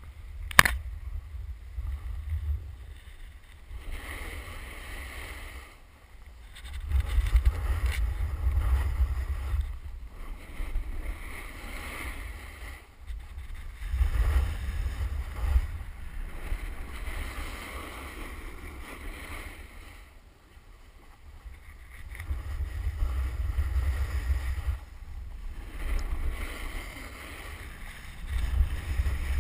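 Wind rumbling on a helmet camera's microphone during a downhill run on snow, swelling and fading in long gusts, with a steady hiss of edges sliding over snow. One sharp knock about half a second in.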